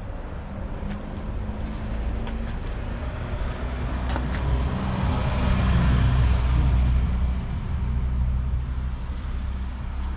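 Motor vehicle engine running with a steady low hum, its sound swelling to a peak about halfway through and then fading.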